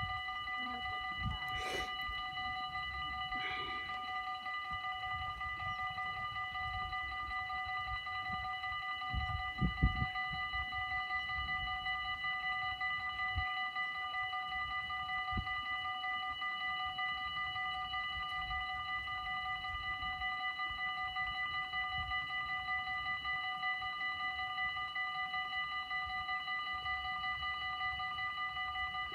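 Dutch level-crossing warning bells ringing continuously, a steady multi-tone ringing that does not change, sounding while the barriers are down. A low rumble runs underneath, with a brief thump about ten seconds in.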